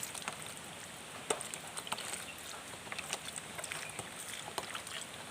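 Water poured slowly from a small container onto the soil of a freshly potted snake plant: a soft trickle with scattered drips and pattering ticks.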